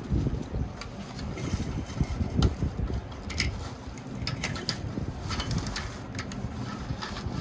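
Plastic toy trucks being handled and rolled: a continuous low rumble with scattered short clicks and knocks.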